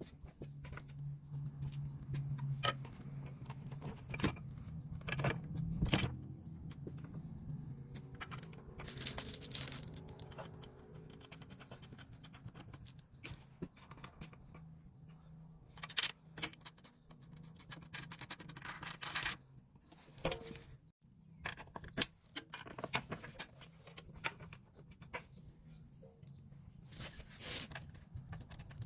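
Small metal hardware clinking and rattling, bolts, nuts and washers handled while mounting a hose reel bracket, with scattered knocks and scrapes over a faint steady low hum.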